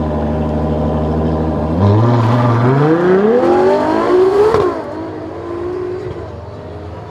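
A supercar engine running at a steady note, then accelerating hard with its pitch rising for about three seconds. The rise ends in a sharp crack and a sudden drop in level, after which the engine runs quieter and lower.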